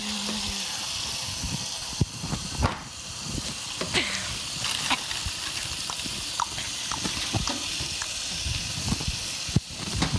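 A steady hiss with scattered clicks and knocks throughout, the sharpest a knock about two seconds in and another near the end.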